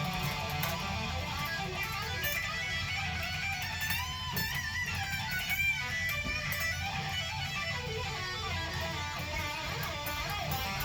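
A guitar being played in a freeform jam, with a few wavering, bent notes about four to six seconds in.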